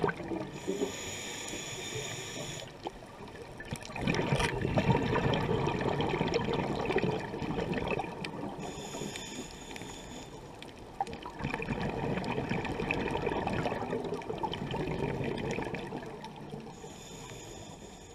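Scuba diver's breathing heard underwater in a slow cycle: a short hiss from the regulator on each inhale, then a longer, louder rush of exhaled bubbles. Scattered sharp clicks run through it.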